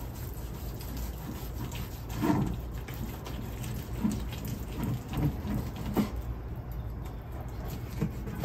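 Chef's knife sawing through the crusty outside of a roasted prime rib on a plastic cutting board: soft crackling scrapes, with a few light knocks of the blade and fork against the board.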